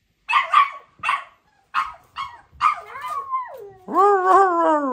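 Chow chow puppies yapping: about six short, sharp barks in quick succession, then a long whining call that wavers and falls in pitch near the end.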